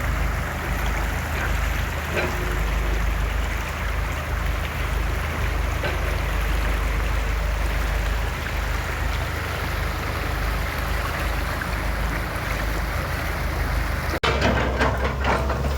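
Excavator's diesel engine running steadily with a low rumble under a broad hiss. Near the end the sound changes abruptly to a series of knocks and clatters.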